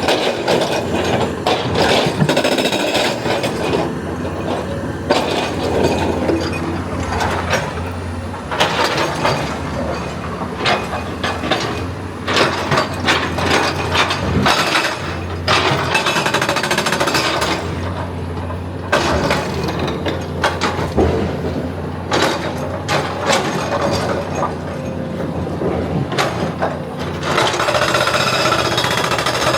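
Excavator at work: its engine runs steadily beneath repeated bursts of loud, rapid, rattling impacts.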